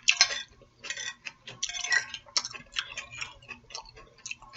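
Close-miked chewing: an irregular, rapid run of short wet mouth clicks and smacks, several a second.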